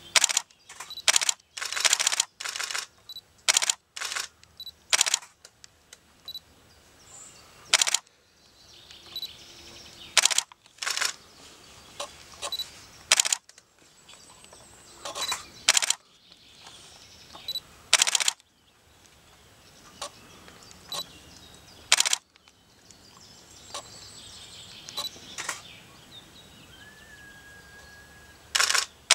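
Camera shutters clicking, singly and in quick runs of two or three, at irregular intervals. Birds chirp faintly underneath, with a short whistled note near the end.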